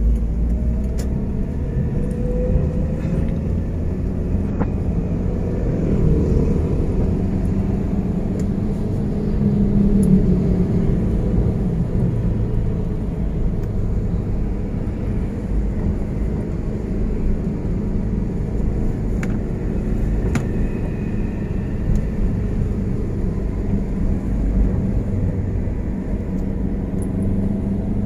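Steady road noise of a car on the move, heard from inside the cabin: engine and tyres running with a low rumble that swells slightly about ten seconds in.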